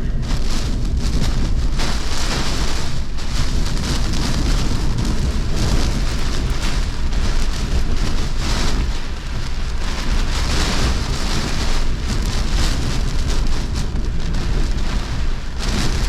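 Heavy wind-driven rain in a severe thunderstorm, with strong straight-line winds buffeting the microphone in a steady low rumble. The hiss of rain and wind swells and fades in repeated gusts.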